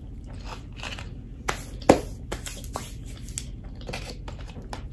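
Crispy breading of a Popeyes fried chicken sandwich crunching close to the microphone. It comes as a string of sharp crackles, and the loudest snap is about two seconds in.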